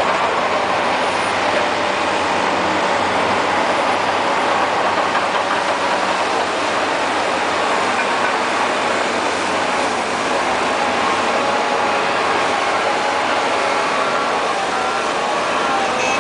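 Liebherr PR 744 Litronic crawler bulldozer running at work: steady, loud machine noise with a few faint steady whines running through it.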